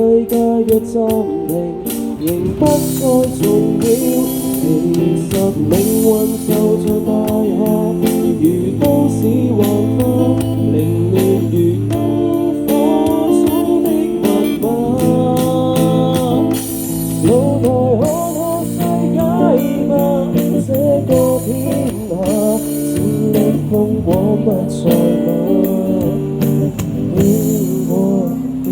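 Small live band performing a pop-rock song: a lead voice singing over strummed guitar.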